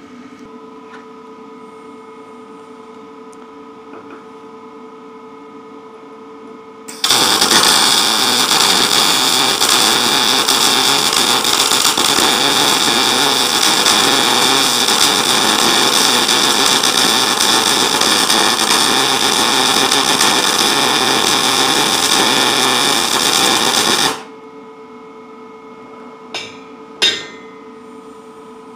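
Lincoln 210 MP MIG welder running one continuous bead with .035 wire and C25 shielding gas, set for quarter-inch steel. The arc starts suddenly about seven seconds in, crackles steadily for about seventeen seconds, and cuts off sharply.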